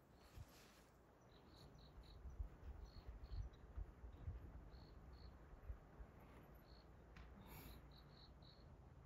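Faint crickets chirping: short, high chirps come at irregular intervals over a quiet outdoor background.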